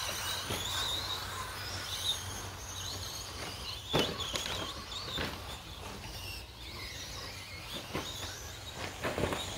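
Electric 1/10-scale 2wd short course RC trucks racing on dirt: a faint high motor whine as they pass near at first, fading as they move off, with a few sharp clicks and a steady low rumble.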